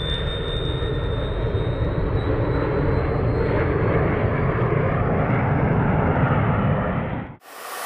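Four Wren Super Sport micro gas turbines on a giant RC Vickers VC10 model flying a low pass: a high turbine whine over a dense jet rush, growing louder. Near the end the sound cuts off suddenly and a steady hiss takes over.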